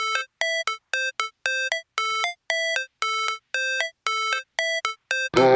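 Background music: a repeating riff of short electronic notes, about two a second. The full track with a deep bass comes in near the end.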